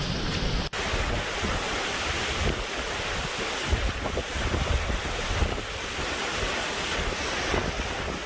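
Strong hurricane winds gusting and buffeting the microphone, a loud rushing, rumbling noise that swells and eases, broken by a brief gap just under a second in.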